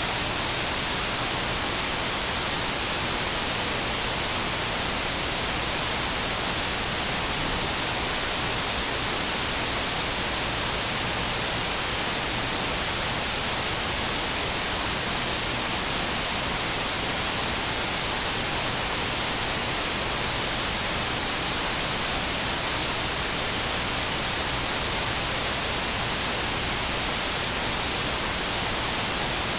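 Steady, even static hiss with no change, loudest in the high treble, like a dead or noisy audio line.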